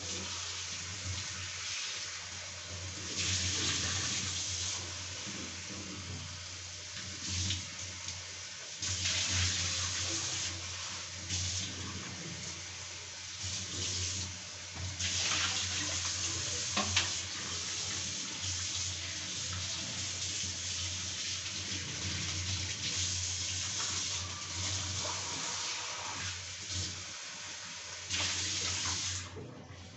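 Oil heating in a kadhai over a gas burner: a steady rushing hiss that swells and eases every few seconds, over a low hum.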